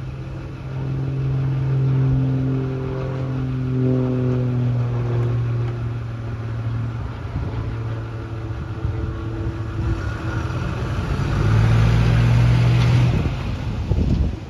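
Small single-engine propeller plane droning overhead, a steady engine note with higher tones sliding slowly in pitch. It grows louder and fuller in the last few seconds, then cuts off abruptly.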